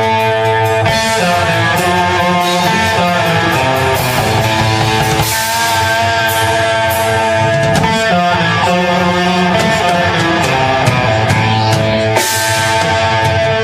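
A live band playing loud rock music led by guitars, with held chords and sharp hits running steadily throughout.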